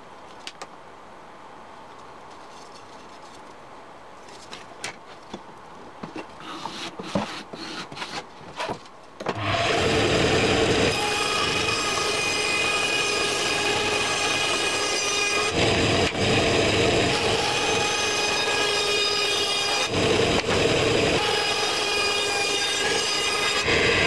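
A few light clicks and taps of hands handling a marking tool and a board. Then, about nine seconds in, a band saw starts running and cutting a board along a curved line: a loud, steady machine sound with several steady tones.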